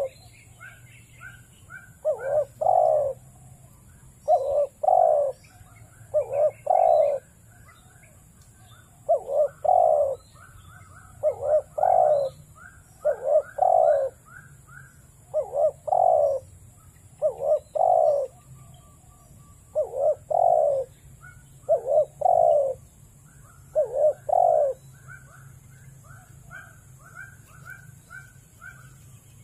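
Dove cooing: loud groups of two or three low coos repeated about every two seconds, with fainter high chirps between them.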